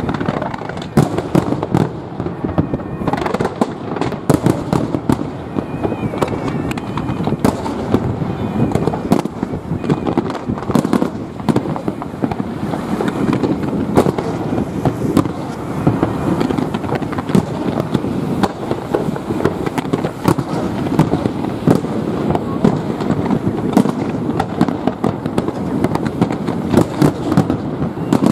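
Fireworks display: a continuous barrage of rapid, overlapping bangs and pops, several a second.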